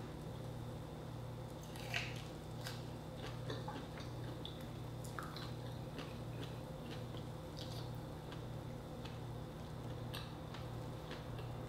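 A person chewing grilled shrimp and rice: many scattered soft mouth clicks and smacks, one louder click about two seconds in, over a low steady hum.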